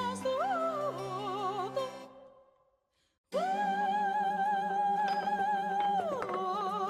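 Operatic soprano voice singing with wide vibrato over a low accompaniment. A phrase fades out, then after a short pause she holds one long high note for about three seconds before dropping into a lower phrase.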